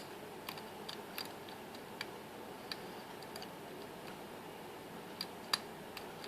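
Faint, irregular clicks and ticks of a pick and tension wrench working the pins inside an Abus XP10 padlock's keyway.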